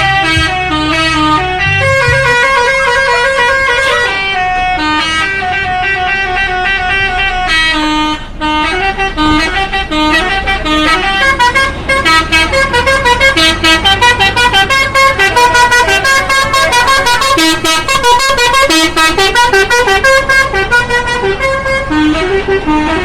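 Bus telolet horn, a multi-tone musical air horn, playing stepped melodies: held notes at first, then from about halfway quick runs of short clipped notes.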